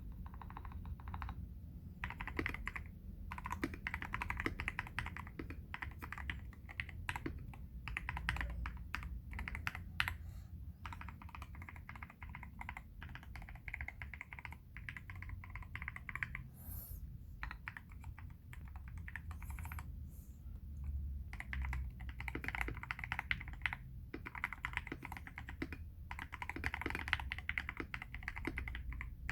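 Typing on a KBD67 Lite R3 mechanical keyboard with lubed Everglide Aqua King 62gf linear switches and XDA-profile PBT keycaps: rapid runs of keystrokes with brief pauses between bursts.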